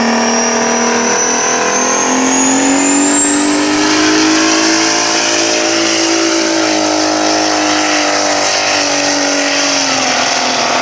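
Pulling truck's engine running hard at high revs, its pitch climbing over the first few seconds, holding, then dropping near the end. A thin high whine climbs alongside it during the first half.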